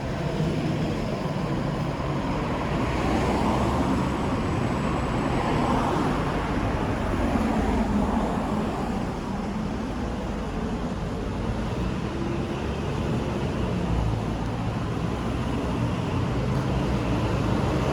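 Road traffic: cars passing by one after another, their tyre and engine noise swelling and fading over a steady background hum.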